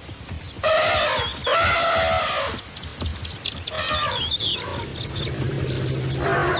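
Asian elephant trumpeting: two loud trumpet calls back to back in the first half, then a shorter one around four seconds in. Birds chirp in the background, and a low steady hum comes in near the end.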